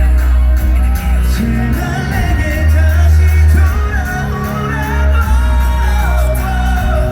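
Live concert sound of a K-pop ballad: male vocals singing over a heavy, sustained bass backing track through a large PA, with crowd shouts mixed in.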